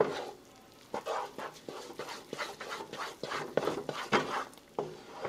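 Wooden spoon stirring thick, floury dough in a large pot, a run of short, uneven scraping strokes that begins about a second in.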